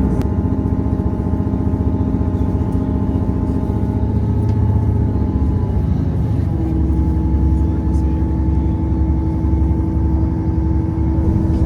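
Diesel multiple-unit train's underfloor engine running, heard inside the carriage as a steady low drone with a humming note; about halfway through the engine note changes to a new steady pitch.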